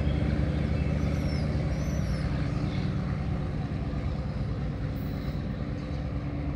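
Alstom AHK diesel-electric locomotive running steadily as it pulls away, its low engine drone slowly fading.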